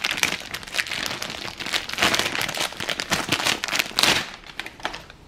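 Clear plastic bag crinkling as an air ratchet is handled and unwrapped inside it, in dense irregular crackles that die away about four seconds in.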